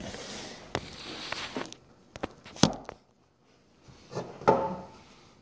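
Hands handling a clear plastic model-car display case on a wooden table: a rustling, sliding noise, then several sharp clicks and knocks of plastic against wood, the loudest near the middle.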